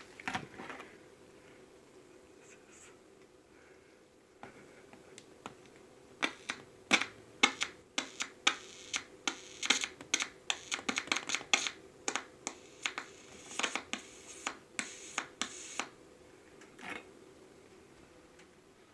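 Faint steady electrical hum from a home-made magnetic-field pickup, broken by a long run of irregular sharp clicks and crackles in the middle.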